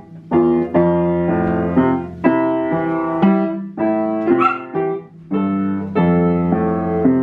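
Background piano music: slow chords struck about once or twice a second, each ringing and fading before the next. A brief noisy sound cuts through about four and a half seconds in.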